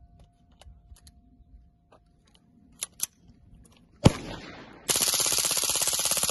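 Full-auto .22 LR rifle with a 3D-printed suppressor: two light clicks, then a single shot about four seconds in, then a continuous rapid burst of fire from about five seconds in.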